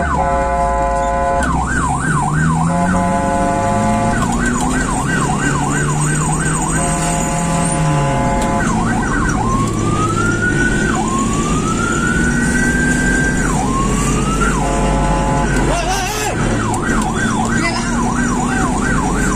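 Ambulance electronic siren in full use, switching modes: a steady blaring tone, a fast warbling yelp, and in the middle a few slow rising wails, before going back to the fast yelp near the end. Road and engine noise from the moving ambulance runs underneath.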